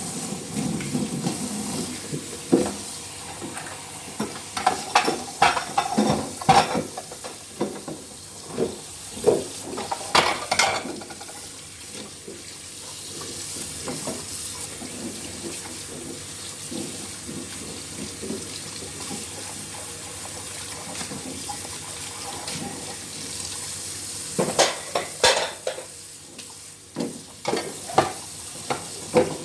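Tap water running into a sink during hand dishwashing, with dishes and utensils clinking and knocking in two spells, one in the first third and one near the end.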